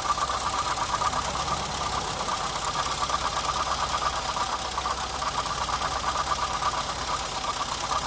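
BMW 325i E30's M20 straight-six engine idling steadily with a fast, even ticking running through it. The owner traces an intermittent cyclic noise in it to the timing belt cover rather than the alternator.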